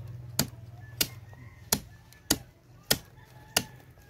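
A large knife chopping through a big sweetlips fish into the wooden slats beneath: six sharp chops, a little over half a second apart.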